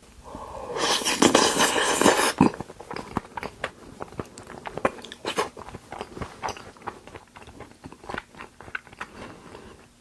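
Close-miked chewing and mouth noises of someone eating Korean raw beef dishes, many small wet smacks and clicks, with a louder noisy stretch of about two seconds near the start.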